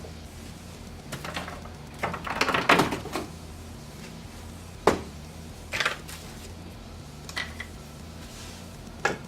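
Scattered clicks and knocks from PC case parts being handled and fitted back together, with a cluster about two to three seconds in and a sharp click about halfway, over a steady low hum.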